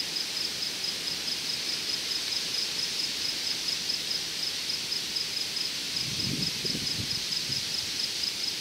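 A cricket chirping in a steady, rapid, high-pitched pulse over an outdoor background hiss. A faint low rustle comes about six to seven seconds in.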